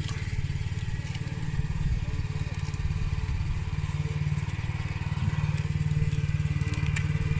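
A vehicle engine running steadily with a low, even hum, with a few faint clicks near the end.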